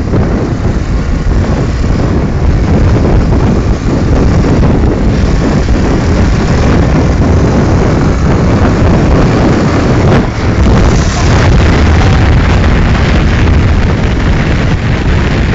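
Wind rushing and buffeting over the microphone of a motorcycle moving at speed, with the bike's engine and road noise underneath.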